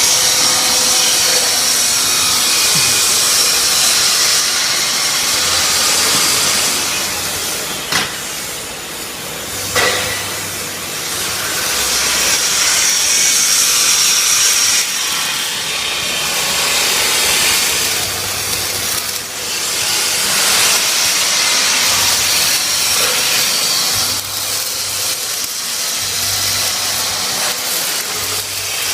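MIG welding arc sizzling and crackling steadily in long runs. It eases off about a third of the way through, with two sharp clicks.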